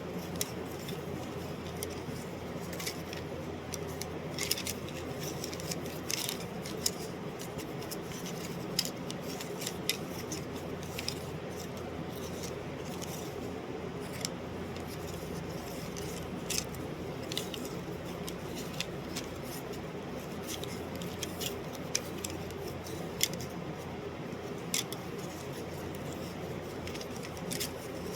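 A steady low hum with irregular sharp clicks scattered over it, a few every couple of seconds.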